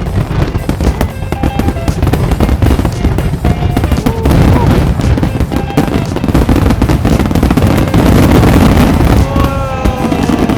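Fireworks display: a rapid, dense string of bangs and crackles from shells bursting, building to the heaviest, loudest barrage about eight to nine seconds in.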